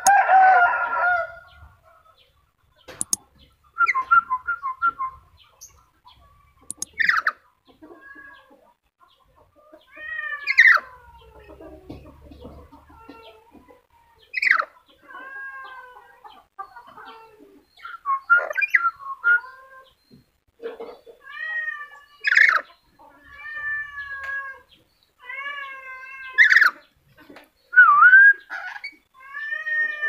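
Black-capped lory calling: a harsh squawk right at the start, then a long string of short whistled and chattering calls that bend up and down in pitch, coming about once a second in the second half.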